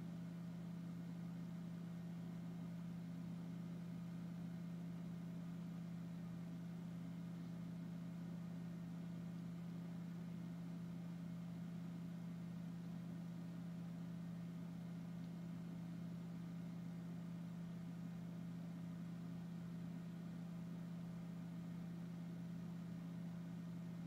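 Steady low hum with no other sounds in it.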